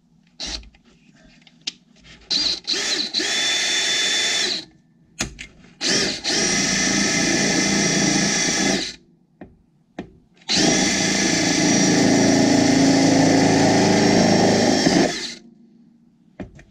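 Cordless drill with a step drill bit cutting a hole through the trailer's aluminum interior wall. A few short trigger blips come first, then three longer runs of steady motor whine, the last one loudest and about five seconds long.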